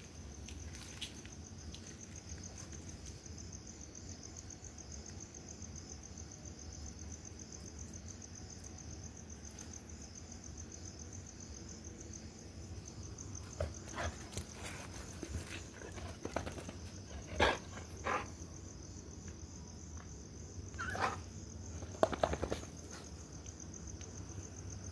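Crickets chirping steadily in a high, pulsing trill, with a dog making a few short, sharp sounds in the second half; the loudest come about 17 and 22 seconds in.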